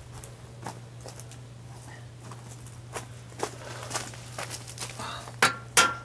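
Faint scuffs and ticks, then from about five seconds in a few sharp metallic clicks and taps with a brief ring: a bent, stuck sheet-metal breaker panel cover being worked at by hand to pry it open.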